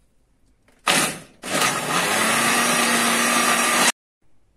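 Electric countertop blender blending cooked taro leaves with pepper: a short burst about a second in, then running steadily for over two seconds with a steady motor hum, cutting off suddenly.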